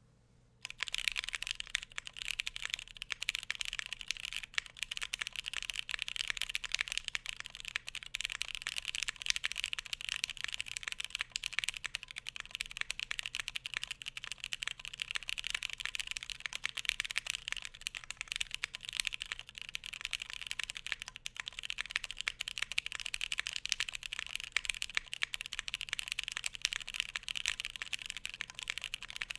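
Continuous typing on a KBDfans Tofu60 keyboard with a polycarbonate plate and Cotton Candy switches: a dense run of keystrokes starting about a second in and going on steadily.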